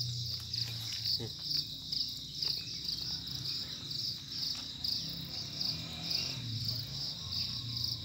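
Insect chorus: a high, steady buzzing that swells and fades about twice a second.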